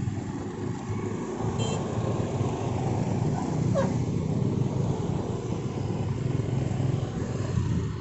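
Road traffic rumble from a vehicle's engine and tyres close by, holding steady, with no horn sounding. A short rising whistle-like sound comes about four seconds in.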